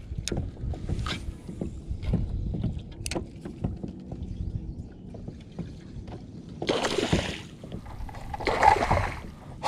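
Knocks, clicks and a low rumble of a kayak and fishing gear being handled on the water, with two longer swishes near the end.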